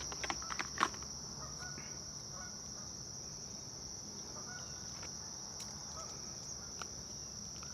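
Steady, high-pitched insect chorus, with a few sharp clicks in the first second and some faint, short calls scattered through it.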